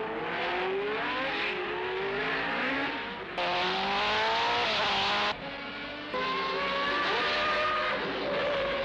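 Racing car engines at high revs, their pitch climbing and dropping back several times as the cars accelerate and shift. The sound is a laid-in track, not the original, and jumps abruptly in level about three and a half and five and a half seconds in, where it is spliced.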